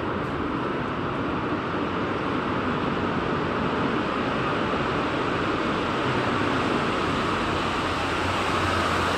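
Vehicle approaching through a road tunnel, its engine and tyre noise a steady rush that grows slightly louder toward the end.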